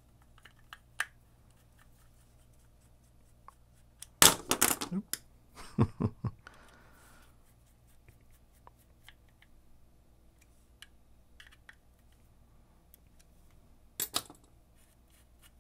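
Small metal parts of a Shimano Tranx baitcasting reel and a small screwdriver clicking and clattering as they are handled and fitted: scattered light clicks, a burst of loud clatter about four seconds in, and another short burst of clicks near the end.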